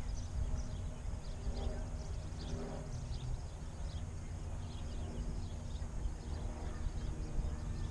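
Wind rumbling on the microphone, with many short bird chirps throughout and a faint steady hum underneath.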